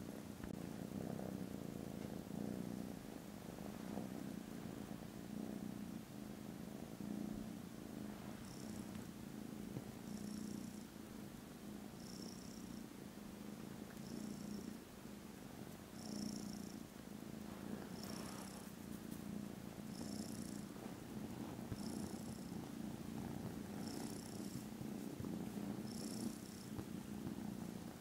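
Kittens purring steadily, the purr swelling and easing about every two seconds. From about a third of the way in, a short high chirp repeats roughly every two seconds.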